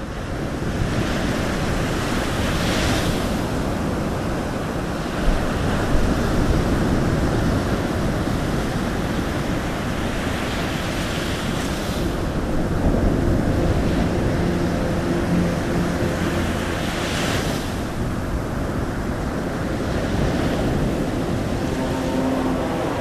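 Steady rushing surf noise of ocean waves, swelling about every six to eight seconds, with faint low held tones coming in during the second half.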